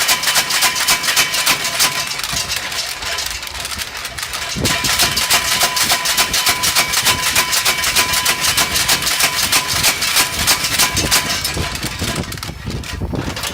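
Blacksmith's power hammer striking hot steel in rapid, even blows, with a brief pause about four seconds in before the blows resume.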